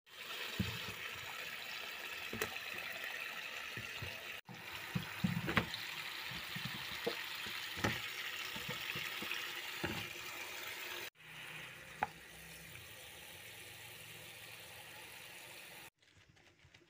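Tap water running and splashing onto vegetables in a plastic basin, with scattered knocks as they bump against each other and the basin. The sound cuts out briefly twice, is quieter after about eleven seconds, and drops low near the end.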